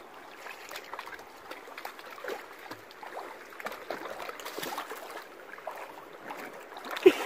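A dog wading through a shallow creek, its legs sloshing and splashing in the water, over the light trickle of the stream. A single sharp knock near the end.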